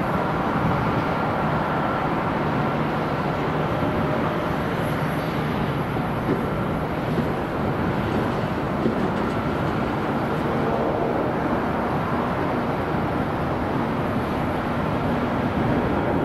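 Boeing E-6B Mercury's four CFM56 turbofan engines running with a steady, even roar.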